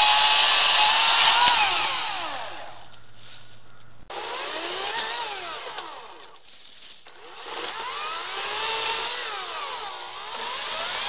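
EGO 56V battery chainsaw's electric motor and chain cutting through a fallen pine log. It runs at a steady high whine, then winds down about two seconds in. After a break, its pitch rises and falls several times and settles near the end.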